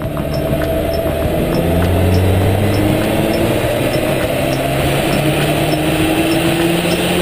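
Nissan Juke 1.6T's turbocharged four-cylinder engine running under load on a chassis dynamometer's rollers, loud and at a fairly steady engine speed, mixed with the whirr of the rollers and cell.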